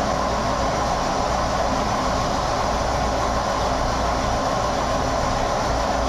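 Lathe running steadily while an 8 mm twist drill, fed from the tailstock, cuts a pilot hole in a metal workpiece: an even machine noise with a low hum underneath.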